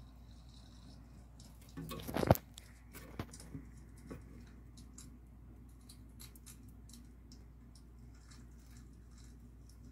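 A katydid chewing a robber fly: faint crunching and scattered small clicks, with a short louder clatter about two seconds in and a few sharper clicks just after.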